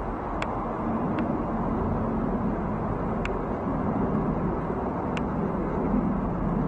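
Jet engines of a Boeing 777 climbing out after takeoff: a steady low rumble that grows a little stronger toward the end. Four short high ticks come through it.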